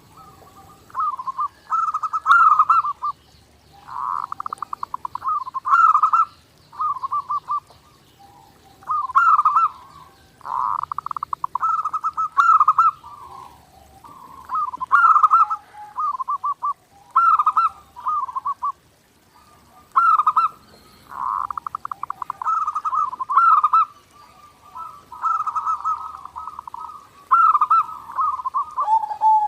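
Zebra dove (perkutut) singing over and over. Each phrase is a rapid rattling trill followed by a few cooing notes, and a new phrase comes every second or two.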